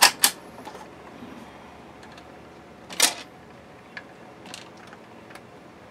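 BSR C129 record changer starting its automatic change cycle: two sharp clicks as the start lever is pushed, then faint mechanical ticking with a single louder clack about three seconds in.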